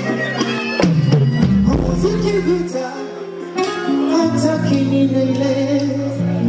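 Live band music with a bass line and guitar, played through the stage sound system.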